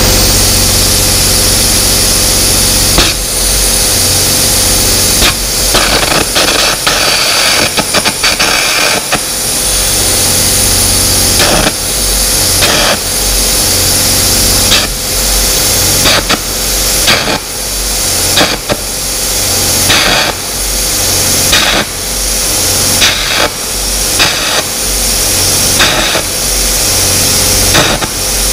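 Carbon-arc gouging rod cutting steel: a loud, steady hiss and crackle of the arc and its air jet, in passes that break off and restart every second or two, with a steady hum underneath. The steel is being gouged away and heated to free a seized dozer blade mount.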